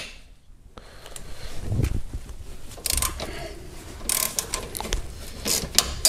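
Socket wrench turning a stuck front brake caliper guide bolt while its spinning guide pin is held with a 17 mm open-end wrench: irregular runs of ratchet clicking and metal-on-metal clicks, heaviest around three, four and five and a half seconds in.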